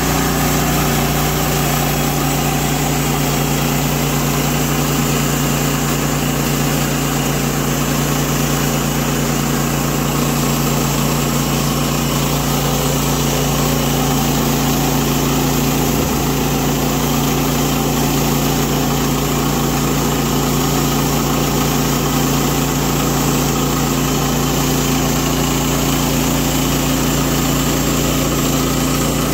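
Norwood PM14 portable bandsaw mill's gas engine running steadily as its band blade saws through a pecan cant.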